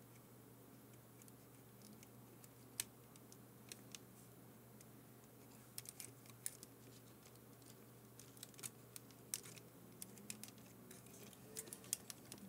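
Near silence with sparse small clicks and taps of fingers handling the plastic chassis and tape mechanism of an AIWA HS-TX610 cassette player while a new drive belt is fitted. The clicks come more often in the second half, over a faint steady hum.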